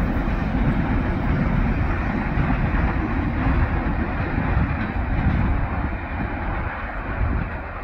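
Coal hopper cars of a freight train rolling over the rails, a steady rumble that gets quieter toward the end as the train moves away.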